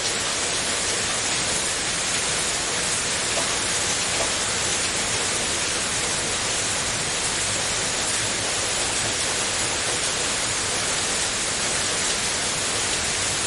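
Steady rain falling, an even hiss of many drops with no distinct individual drips.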